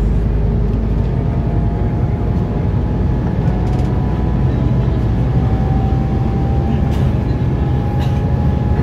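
Cabin noise inside a Scania articulated bus under way: a steady low engine and road drone, with a faint whine above it that drifts slightly in pitch.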